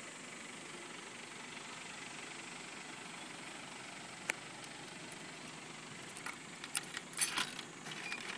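Steady background noise with a single sharp click about four seconds in. From about six seconds in comes a run of light metallic clinks and jingles, coins being handled and fed into a DyDo drink vending machine's coin slot.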